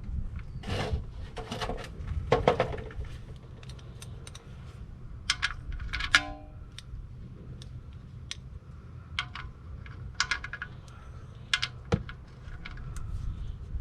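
Metal tools and parts clinking and tapping in irregular clicks, with one short ringing metallic clink about six seconds in.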